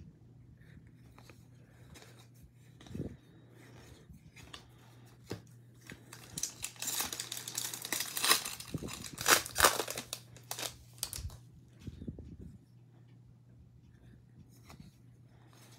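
A foil trading-card pack wrapper being torn open and crinkled by hand, in a dense run of crackles a few seconds in that lasts about five seconds, with lighter rustles of card handling before and after. A faint steady low hum sits underneath.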